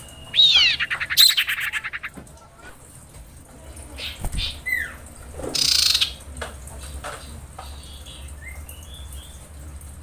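Female common iora calling. A sharp downslurred note runs straight into a fast rattling trill, lasting about a second and a half. A few softer downslurred whistles and a brief rustling burst follow midway, over a steady low hum.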